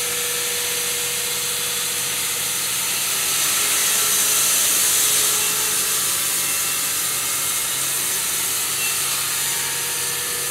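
Wood-Mizer LT300 band sawmill running, its band blade sawing through a claro walnut burl cant with a steady hissing whine that swells slightly around the middle.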